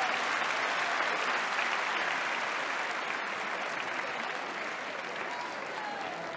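Theatre audience applauding steadily, easing off slightly toward the end.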